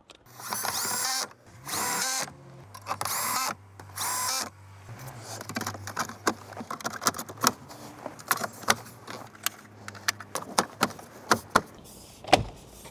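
A cordless electric screwdriver whirring in four short bursts, driving the dash and radio fasteners back in. This is followed by a long series of sharp plastic clicks and snaps as the dash trim panels are pressed back onto their clips.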